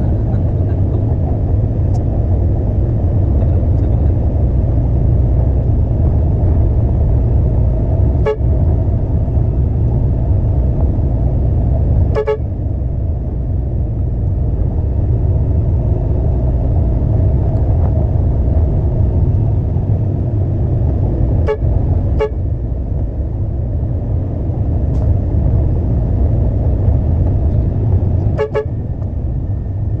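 Steady low rumble of a concrete truck's engine running, with short horn toots heard five times: once about a third of the way in, again a few seconds later, twice in quick succession past the middle, and once near the end.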